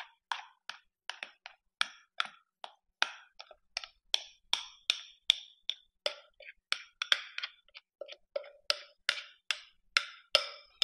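Metal spoon clicking repeatedly against the inside of a glass mixing bowl, about three clicks a second, as thick peanut butter pie filling is scraped out of it.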